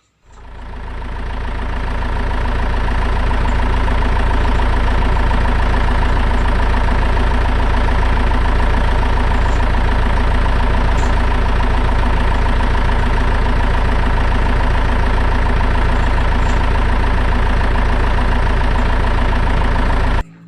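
A vehicle engine idling steadily with a rapid, even pulse and a deep low end. It fades in over the first couple of seconds and cuts off abruptly near the end.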